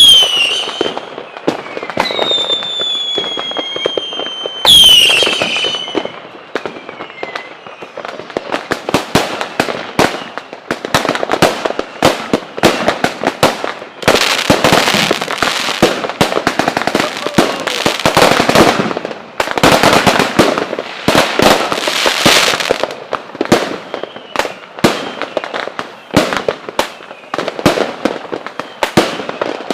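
Fireworks: whistles falling in pitch three times near the start, then a long barrage of sharp bangs and crackling, densest about halfway through.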